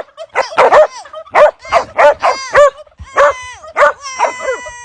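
A farm animal calling over and over: about a dozen short, high yelps in quick succession, ending in one longer held call near the end.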